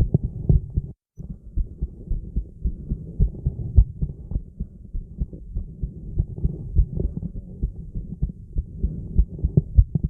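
A woman's heartbeat recorded on a phone: a steady run of low thuds, with a brief dropout about a second in.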